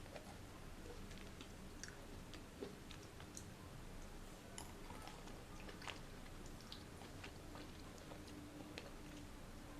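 A person chewing juicy fruit close to the microphone: faint, irregular wet mouth clicks and smacks.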